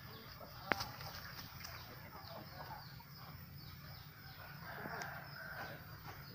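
Faint outdoor ambience of bird calls, with one sharp click about a second in.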